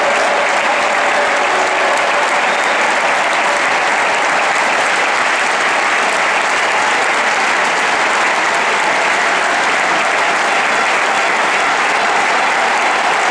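Large stadium crowd applauding steadily for a player's lap of honour, a dense unbroken roar of clapping.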